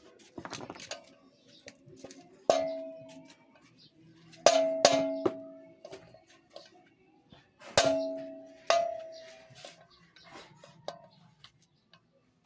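Hammer striking a metal drift pressed into the wet paper packed in a scooter crankcase bearing bore, about six ringing metallic blows with lighter tool clinks between. The pressure of the packed wet paper is meant to push the bearing up out of its seat.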